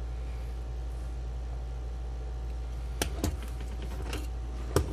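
Light clicks and knocks of a small circuit board and its wire leads being handled on a wooden bench while the transformer leads are fitted to its input terminals: two close together about three seconds in, one after four seconds and a sharper one near the end, over a steady low hum.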